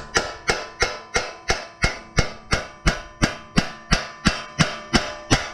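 A hammer beating a steel axle through a mini bike's wheel hub and brake drum, about three sharp blows a second, each leaving the metal ringing.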